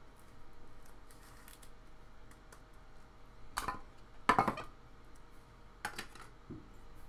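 A trading card being handled in a clear plastic sleeve and card holder: a few short rustles and scrapes of plastic, the loudest a little past the middle.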